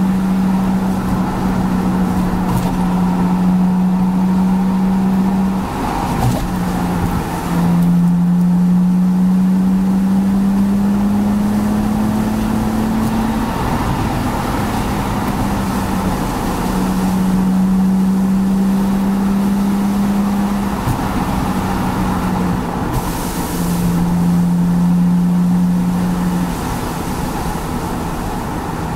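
BMW N52B30A 3.0-litre inline-six engine running under throttle at roughly 3,000–4,200 rpm while driving. Its note holds steady with small steps in pitch, climbs slowly about a third of the way in, and eases a little lower near the end as revs drop to about 3,000.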